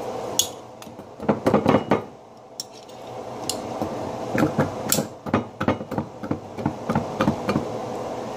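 Hard knocks and clinks of a metal utensil striking a frozen block inside a glass pitcher, trying to break the ice loose. A quick flurry of hits comes about a second in, then irregular single knocks from about four seconds on.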